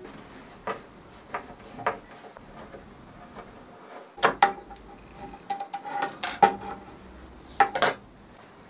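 A screwdriver working small screws out of a brass lid stay, with scattered light metallic clicks and clinks as the screws and the brass stay are handled and set down on the wooden desk, in three short clusters.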